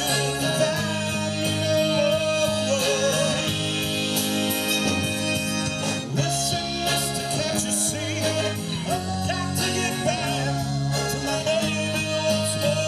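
A band playing a bluesy rock song: a singer holding long, wavering notes over guitar, bass and a steady drum beat.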